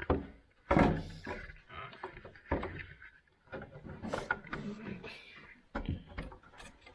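Hand tools working on the metal parts of a table saw: irregular clicks, knocks and scrapes as they try to cut a piece off, with the loudest clatter about a second in.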